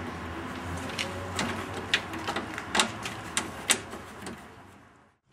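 About half a dozen sharp, irregularly spaced metallic clicks and taps from fitting and tightening the radiator's metric mounting screws by hand, over a low steady background hum. The sound fades away near the end.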